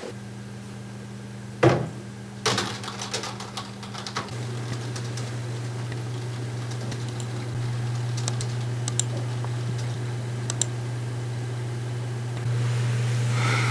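Computer keyboard typing and mouse clicks, in a short run about two and a half seconds in and then a few scattered faint clicks, over a steady low hum. A single sharp knock comes just before the typing.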